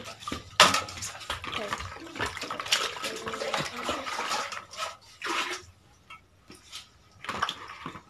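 Hands swishing and lifting pieces of whistling-duck meat in a plastic basin of water, with irregular splashes and drips, and pieces set down with light knocks into an aluminium pot. The splashing is busy for the first five seconds or so, goes quieter, then comes back briefly near the end.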